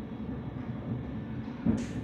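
imes-icore 450i CNC milling machine running a milling job with a steady, rough mechanical rumble. A single sharp knock comes near the end.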